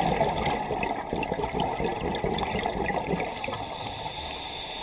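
Underwater sound picked up by a dive camera: a rushing, bubbling water noise, stronger for the first three seconds and then easing off.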